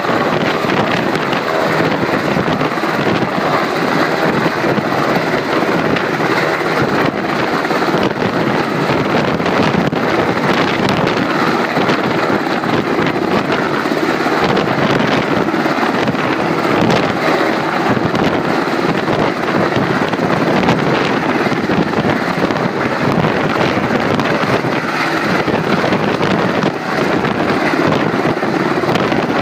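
US Coast Guard MH-60 Jayhawk helicopter hovering low overhead: a loud, steady rotor and turbine noise, with wind buffeting the microphone.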